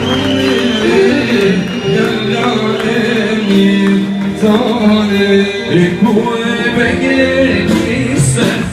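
Live band music with a man singing over it.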